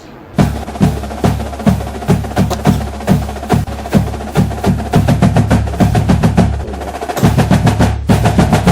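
Drum-driven music: steady drum hits about two to three a second over a low sustained bass, quickening into a rapid roll near the end and cutting off sharply.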